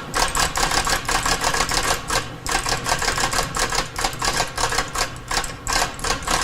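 Typewriter keys being struck in a rapid, uneven stream of sharp clacks, several a second, with a brief pause about two and a half seconds in.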